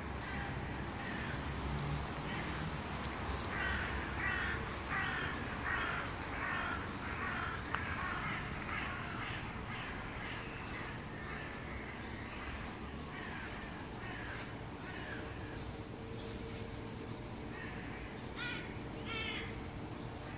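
A bird, crow-like, cawing in a run of about ten evenly spaced calls, then two more calls near the end, over a steady low background.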